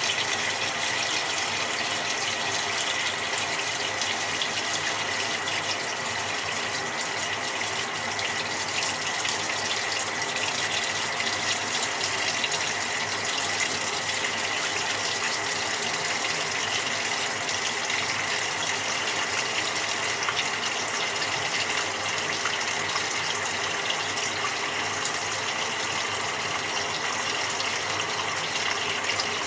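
Water rushing steadily inside a Samsung 6.5 kg top-loading washing machine during its quick cycle, with a faint steady whine running through it.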